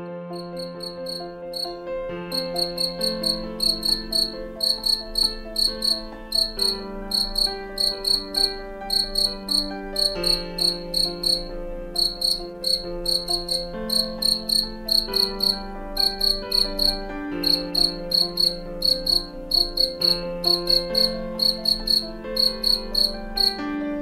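Male European field cricket (Gryllus campestris) singing its calling song: a high, pulsing chirp repeated about three times a second in long runs, with a few brief breaks. Soft background music with slowly changing chords plays beneath.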